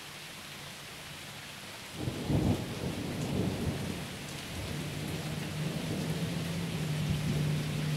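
Rain falling steadily, then about two seconds in thunder cracks and rolls on as a long, low rumble over the rain.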